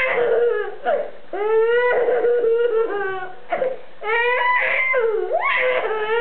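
Baby laughing hard: a run of long, high-pitched squealing laughs, each drawn out for a second or more, with short catches of breath between them.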